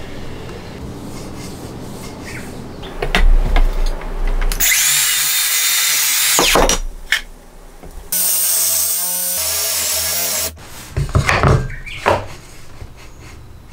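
Makita HS631DZSB cordless circular saw cutting a wooden board in two runs of about two seconds each, with a short pause between, the blade whining through the wood. Knocks of wood being handled come before and after the cuts.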